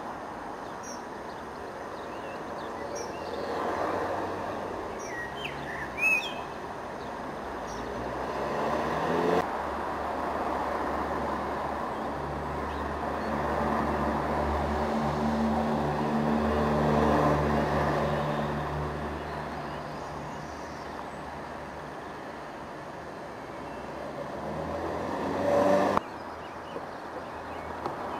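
Background road traffic: a vehicle engine runs steadily through the middle for several seconds, with small birds chirping in the first few seconds and a sharp knock about six seconds in.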